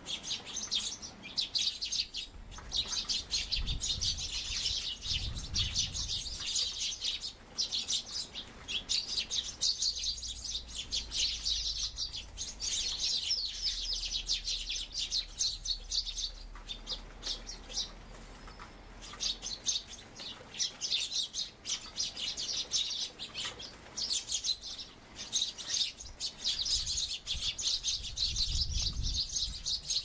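A flock of Eurasian tree sparrows, many of them fledglings, chirping rapidly and almost without pause, with a few short lulls. Low rumbles of wind on the microphone come twice, a few seconds in and near the end.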